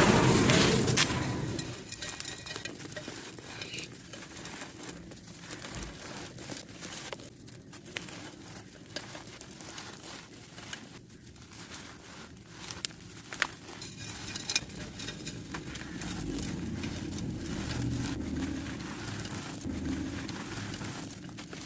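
Dry sand-cement chunks being crushed and crumbled: gritty crackles and scattered sharp clicks, after a loud rushing noise in the first second or so.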